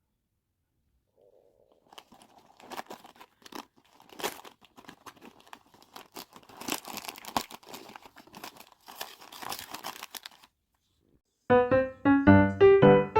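Irregular crinkling and rustling of something being handled, with scattered crackles for about nine seconds. Piano music starts near the end.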